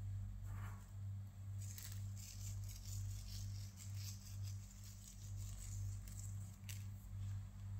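Soft background music with a low hum that pulses about twice a second. Over it, faint light pattering of black sesame seeds sprinkled onto egg-washed dough buns, once around two seconds in and again near the end.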